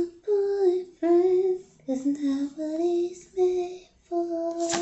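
A woman singing a slow tune without clear words, a string of short held notes with brief pauses between them.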